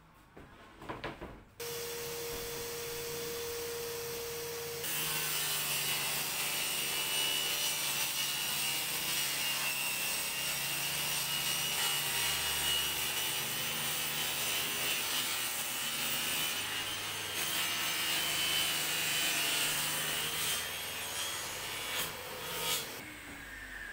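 Table saw ripping plywood: a steady machine hum, then a long loud cutting noise with a high whine as the sheet is fed through the blade, dying away near the end.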